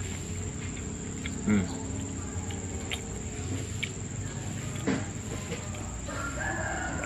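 Steady high-pitched insect chirring, with a few soft clicks and taps from fingers mixing rice on a ceramic plate.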